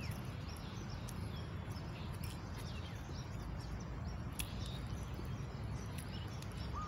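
Small birds chirping often and faintly over a steady low outdoor rumble, with one sharp click about four and a half seconds in.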